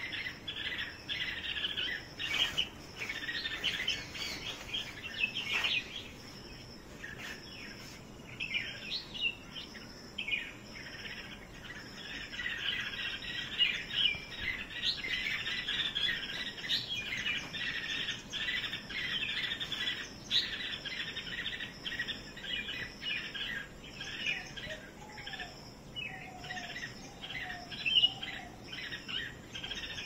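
Bulbuls chirping and calling almost without pause in quick short notes. The calls thin out briefly about six to eight seconds in, and a few lower, falling notes come near the end.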